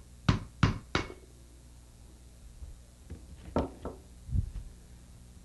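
Hammer tapping a screwdriver three times, about a third of a second apart, to drive the lip seal out of a Corken Z-model sliding-vane pump head. A few fainter knocks follow about three to four and a half seconds in.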